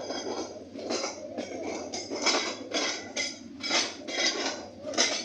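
Metallic clanking and rattling of a passing train's wheels and carriages, about two sharp clanks a second over a steady rumble.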